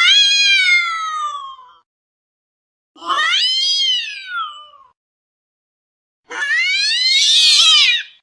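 Domestic cat giving three long, drawn-out meows a few seconds apart, each rising then falling in pitch.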